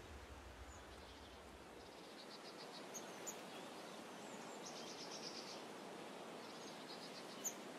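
Faint room ambience with small birds chirping outside: short high chirps and a few quick pulsed trills. A low hum stops about two seconds in.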